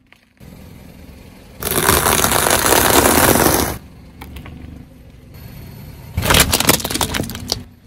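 Car tyre rolling over things on asphalt and crushing them. About two seconds in there is a long crunching squash of soft food. About six seconds in a toy built of plastic blocks gives way in a run of sharp plastic cracks and snaps.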